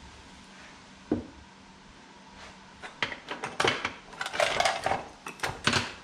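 Small hard objects knocking and clattering on a wooden workbench as they are handled: one sharp knock about a second in, then a busy run of clicks and clatter from about halfway through.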